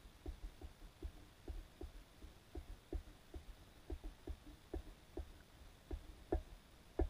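Faint, soft knocks, about three a second and unevenly spaced, picked up through an underwater camera's housing.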